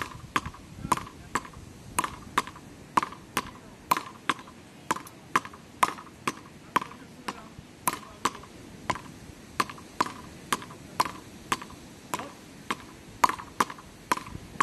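Wooden palas paddles hitting a small ball back and forth in a fast, unbroken rally: a sharp knock about twice a second, each with a short ring.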